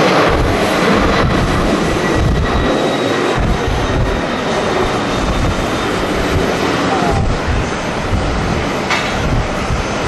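Boeing 767 twin-jet airliner's engines at takeoff power, a loud steady jet rumble as it lifts off and climbs away, easing slightly toward the end. Strong gusts of wind buffet the microphone underneath.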